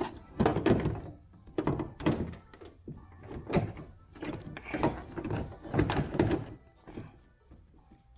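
A run of irregular hard thunks and knocks, about a dozen, several coming in quick pairs: tail light housings and hardware being handled and fitted onto the pickup.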